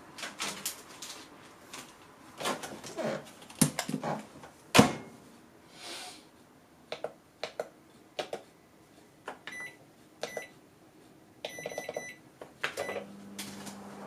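Toshiba microwave oven being loaded and started: knocks and clicks as the door is handled and the instant soba cup goes in, the loudest a door shutting about five seconds in. Several short keypad beeps follow as the time is set, and near the end the oven starts up with a steady low hum.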